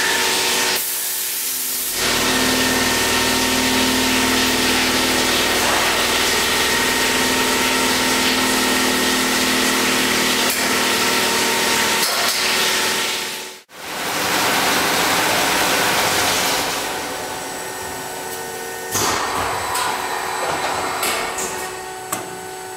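KFG 320 CNC bevel gear milling machine running: a steady hiss with a low hum. It drops out for a moment about halfway through, and in the last few seconds it turns quieter, with a light clicking and rattling.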